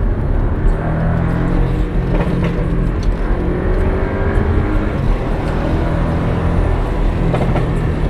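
Porsche 718 Cayman's engine and road noise heard from inside the cabin while driving, the engine note rising gently in pitch a few times around the middle.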